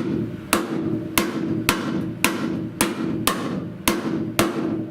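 Hammer striking the buckled steel outer rocker panel of a 1970 Buick Wildcat, light blows at about two a second, each with a short metallic ring. The blows are tapping in a buckle left by collision damage to flatten the panel.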